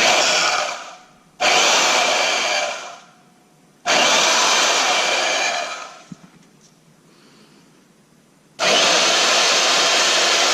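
Chicago Electric (Harbor Freight #62800) portable bandsaw running unloaded, with a freshly fitted bi-metal blade, being triggered in four short runs. Each run starts suddenly and winds down as the trigger is let go; the last one is longer and is still running near the end.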